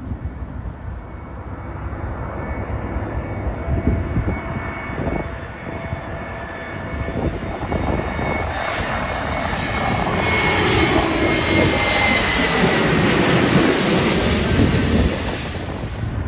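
Jet airliner on final approach, its engine noise growing louder as it comes in low and passes nearly overhead, loudest from about eleven to fifteen seconds in. The engine whine falls in pitch as it goes by.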